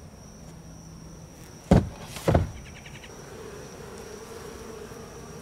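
Two loud knocks close together, as the wooden hive box is handled, then, from about three seconds in, the steady buzz of a honey bee colony in the opened hive.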